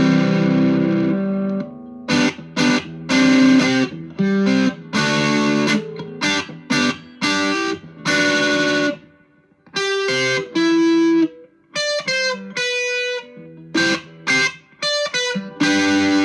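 Electric guitar on its bridge pickup played through a JHS Ross Distortion pedal in germanium mode. A held distorted chord opens, followed by short chopped chords, then a single-note lead line in the second half.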